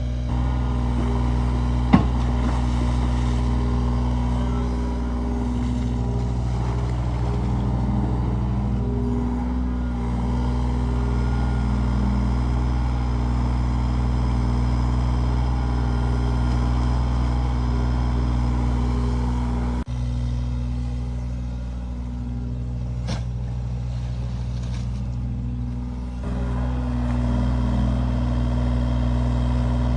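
Engine of a digging machine running steadily while it works, its note shifting slightly with load. There is a sharp click about two seconds in and a brief drop-out about twenty seconds in.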